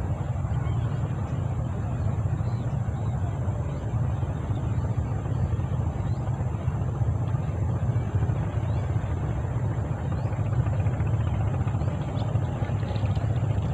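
A steady low rumble, with a faint, thin high-pitched hum above it and a few faint short chirps.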